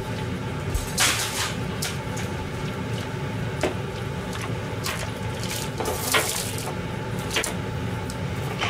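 Steady kitchen background hum, with about half a dozen light knocks and clicks scattered through it.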